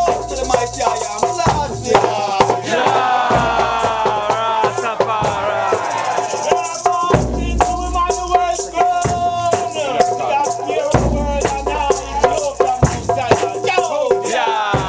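Voices of a congregation chanting together over rattles shaken in a fast, steady beat of about three to four strokes a second, with some drumming.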